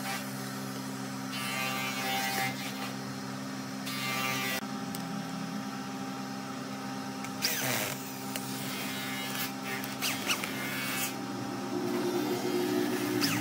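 A steady machine hum from a running workshop motor, broken by several short bursts of scraping and clatter as a metal lathe faceplate and its screws are handled on a wood blank; near the end a power tool runs up with a rising pitch.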